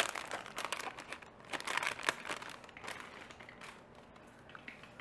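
Plastic packaging crinkling and crackling as it is handled, in short irregular rustles that are busiest in the first couple of seconds and then tail off.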